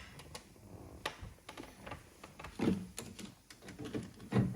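Scattered light clicks and a few duller knocks, irregularly spaced: hand tools and small parts being handled and set down.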